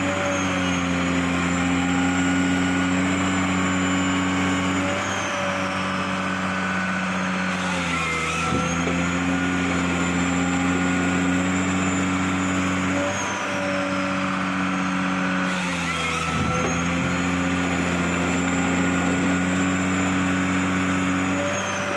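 Wheeled forestry harvester at work: its diesel engine runs steadily under a high whine that rises, holds and falls. The engine note shifts and brief knocks sound about every eight seconds as the work cycle repeats.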